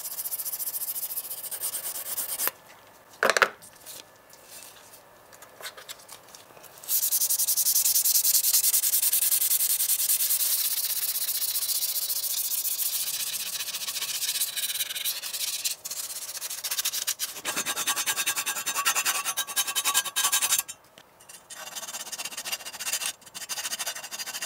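Small hand file rubbing on the bare metal body of a diecast model car, scraping in spells of strokes with short pauses. There is a single sharp knock about three seconds in.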